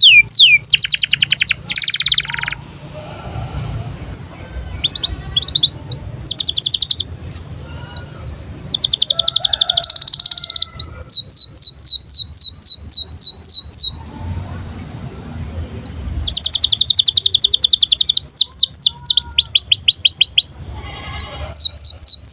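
Domestic canary song in breeding condition: phrases of repeated high, downward-sweeping chirps alternate with very fast buzzing rolls, with short quieter pauses between phrases. It is the kind of song used to prompt other canaries to sing and roll.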